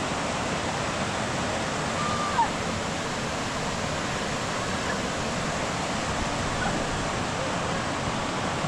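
Steady rush of heavy rain and running runoff water. A few faint, brief high calls rise above it, the clearest about two seconds in.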